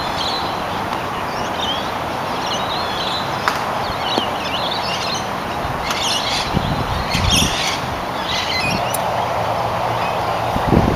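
Birds chirping on and off over a steady outdoor hiss.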